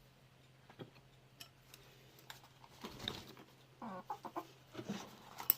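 Domestic hens clucking, a few short calls in the second half, with scattered sharp clicks and a louder click near the end.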